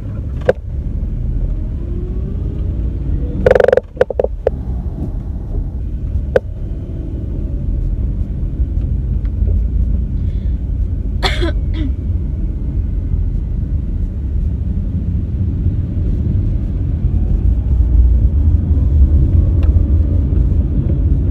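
Steady low rumble of car road noise heard from inside the cabin, broken by two loud, short coughs, one about three and a half seconds in and another about eleven seconds in.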